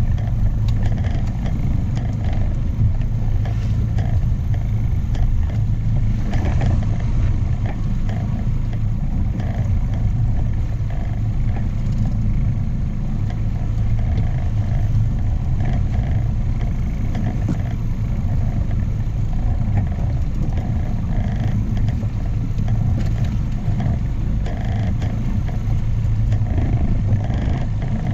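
Outboard motor of a small inflatable boat running steadily, a constant low hum, with a rush of water and wind over it.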